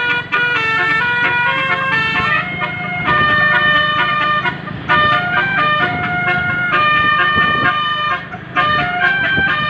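Telolet basuri bus horn, an electric multi-tone horn, playing a quick tune. Its notes step up and down in short phrases, with brief breaks about four and a half and eight seconds in, over a steady low hum.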